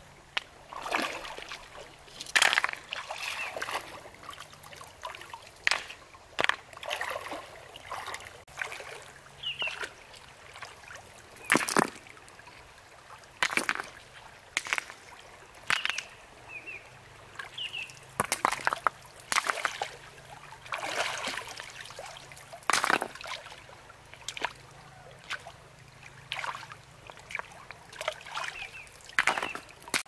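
Water sloshing and splashing in short irregular bursts, one every second or two.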